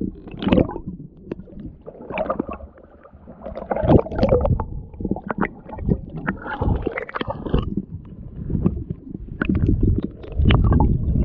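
Muffled underwater sloshing and gurgling heard through a camera's waterproof housing held under the surface, with irregular knocks and bumps on the housing.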